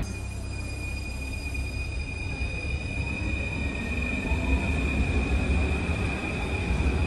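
Paris Métro train pulling out along the platform: a low rumble that grows louder about halfway through, with a steady high-pitched squeal running over it.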